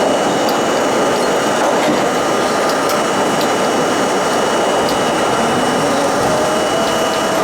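Budd-built R32 subway car running through the tunnel: a loud, steady rumble of wheels on rail with a constant high whine and occasional faint clicks. A new steady tone joins about a second before the end.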